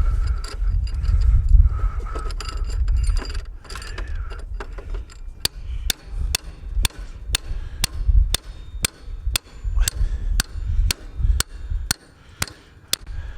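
Metal knocking and clicking as a snowblower axle is worked through its new brass bushings. There is low knocking and rumbling at first, then a steady run of sharp metallic clicks, about two a second.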